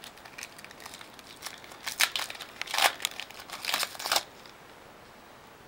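Crinkling and tearing of a foil trading-card pack wrapper being handled, a run of sharp crackles that stops about four seconds in.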